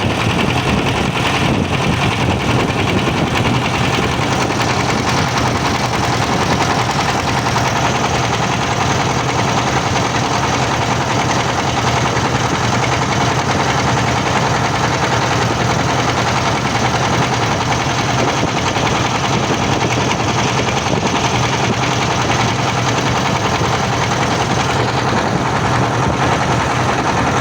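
Boat engine running steadily while cruising, a constant low hum with an even rush of noise over it and no change in speed.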